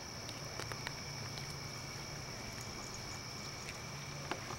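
Steady, faint chirring of night insects such as crickets, held on two high pitches, with a few light footsteps on the ground.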